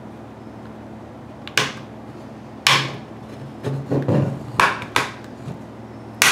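Plastic snap-fit clips of a tablet's back case clicking loose as the case is pried open by hand: a series of sharp snaps, about half a dozen, bunching together about four seconds in.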